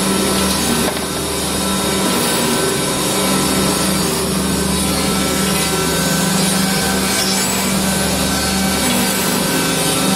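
Automatic rotary-table woodworking machine running steadily while cutting wooden toy train track pieces: a constant motor hum under continuous wood-cutting noise.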